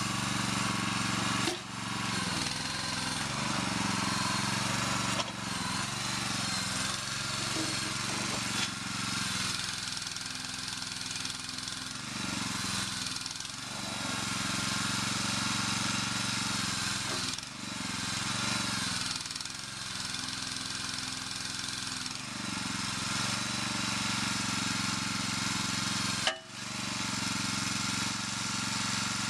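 Small 6-horsepower single-cylinder gas engine driving the hydraulic pump of a homemade mini excavator, running steadily. Its note shifts every few seconds as the hydraulic valves are worked and the boom and bucket move under load, with a sharp click and brief break near the end.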